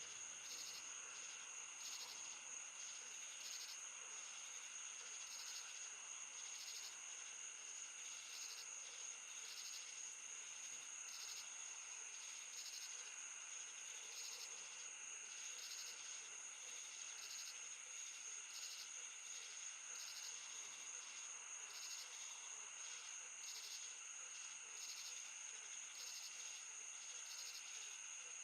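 Night insects, crickets: a continuous high-pitched trill with a second insect chirping in a steady, regular pulse over it.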